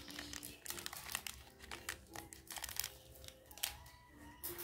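Plastic candy wrapper crinkling in the hands, with small foam beads rustling and clicking as the hands move through them: a run of irregular little crackles.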